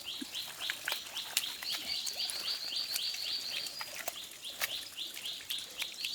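Rhythmic high-pitched chirping, about five short chirps a second, from a calling animal, with scattered sharp clicks and taps.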